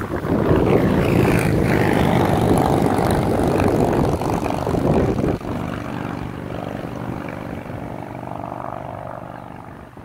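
Motorcycle engine going past, loud and rough for about the first five seconds. Then it settles into a steady engine hum that slowly fades away.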